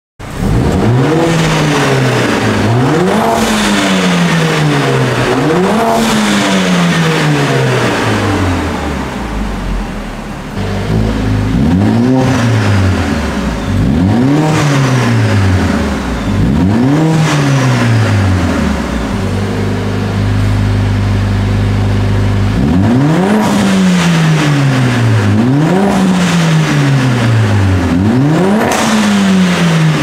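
Mercedes-AMG CLA45 S's turbocharged 2.0-litre four-cylinder being free-revved through a Fi Exhaust valvetronic catback: about nine quick blips in groups of three, each climbing fast and falling back slowly. The car settles to a steady idle between the groups, most plainly a little past the middle.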